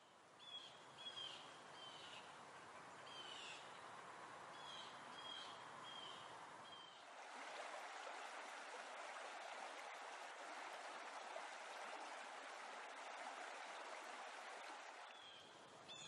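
Faint rushing of running water with a bird giving short, repeated chirps for the first seven seconds or so. About seven seconds in the chirps stop and the water sound turns slightly louder and brighter.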